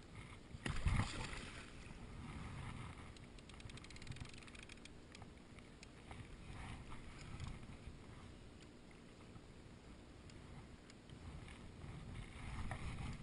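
Water lapping and sloshing against an inflatable float tube, with a low rumble throughout and one louder knock or splash about a second in.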